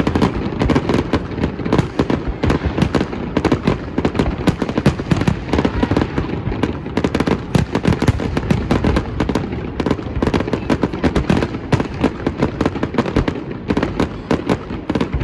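Fireworks display: a dense, continuous barrage of bangs and crackling shells, many a second, with no break.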